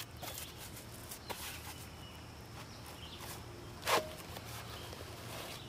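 Faint handling of a Cordura nylon armor-plate cover: fabric rustling and scuffing as it is opened to get at the shot steel plate inside, with one short, louder sound about four seconds in.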